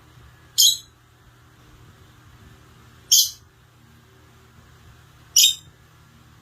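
Parrot giving three short, loud, high-pitched calls, evenly spaced about two and a half seconds apart.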